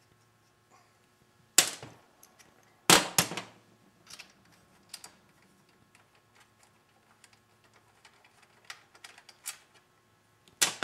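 Metallic clanks and clicks from bolts being taken out of a Tecumseh TVS105 lawn mower engine's sheet-metal shroud: two loud clanks about a second and a half and three seconds in, lighter scattered clicks after, and another loud clank near the end.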